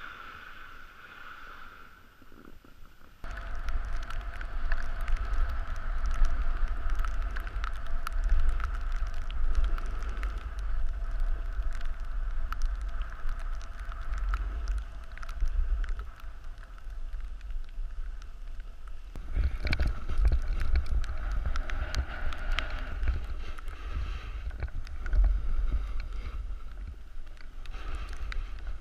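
Wind buffeting a helmet-mounted action camera's microphone while riding a snowboard downhill, with the board scraping and chattering over the snow. It starts suddenly about three seconds in, eases for a few seconds past the middle, then picks up again.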